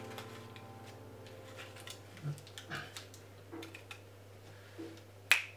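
Faint crinkling of parchment paper and shifting of rice pie weights as hands press them into tart tins, with a sustained music note fading away at the start. A sharp click sounds near the end.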